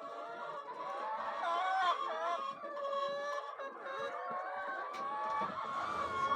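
A flock of chickens clucking, many birds calling over one another without pause.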